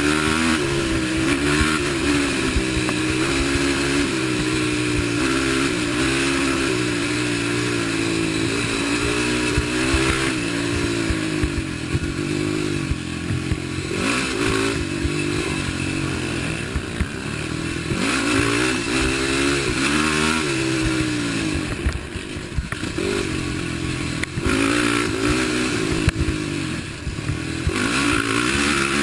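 Race quad's engine running hard at race pace, its pitch rising and falling again and again as the throttle is opened and rolled off, with a few brief dips in the middle and near the end.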